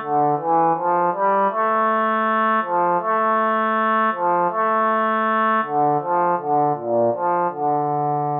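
Music with a brass-like lead: a tune of short, stepped notes over a lower line, ending on a longer held note.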